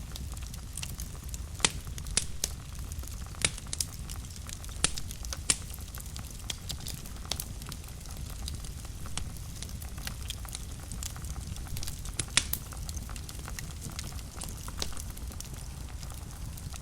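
Wood fire burning in a fireplace: a steady low rumble of flames with sharp, irregular crackles and pops, several of them loud.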